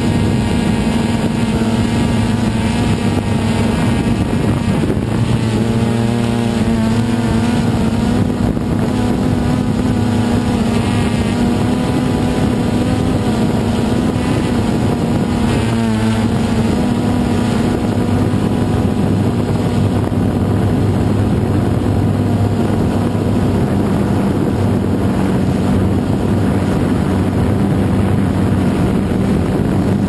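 DJI Phantom 2 quadcopter's four motors and propellers buzzing steadily, loud and close. The pitch wavers briefly about six seconds in and again around sixteen seconds as the drone adjusts its flight.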